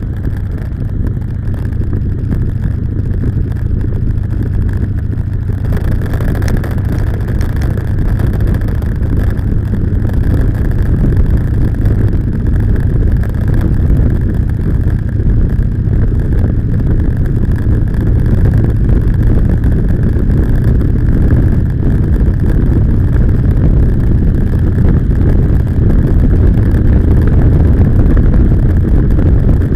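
Motorcycle running along at road speed, its engine mixed with wind rushing over the bike-mounted camera's microphone: a steady low rumble that slowly grows louder.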